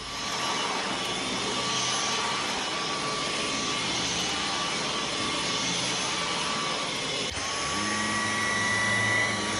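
Dyson cordless stick vacuum running steadily, a whirring motor with a high whine. About seven seconds in the sound breaks briefly and then settles with a higher whine and a low hum.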